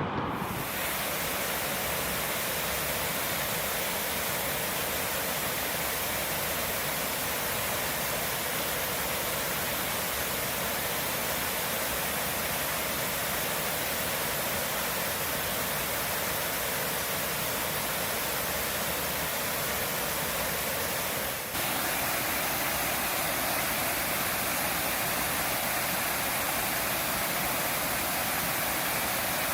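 Steady rush of a waterfall: falling water making an even hiss. It briefly dips about two-thirds of the way through, then goes on with a slightly different tone.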